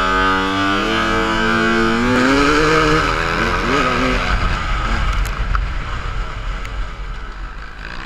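KTM 250 EXC two-stroke enduro bike's engine under way on a dirt trail, held at steady revs and stepping in pitch, then rising and falling as it is revved. In the second half a rougher rushing noise of wind on the microphone takes over.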